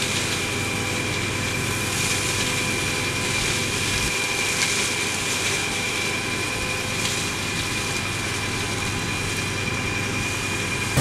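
Tractor engine running steadily while a Spearhead Excel 565 reach-arm hedge cutter's flail head cuts a hedge, with a steady high whine over the machine noise.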